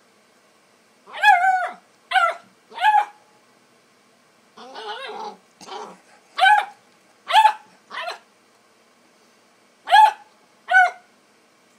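Bluetick coonhound puppy barking, about eight high-pitched barks in short groups, with a low rough growl about five seconds in.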